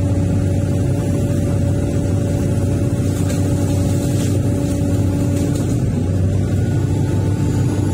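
Hydraulic excavator's diesel engine running steadily as the boom and bucket move, heard from inside the operator's cab. A few faint rattles come in around the middle.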